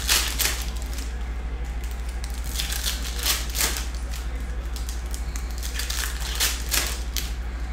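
Foil wrappers of Donruss Optic basketball card packs crinkling as they are torn open and handled, in three short bunches of crackles, over a steady low hum.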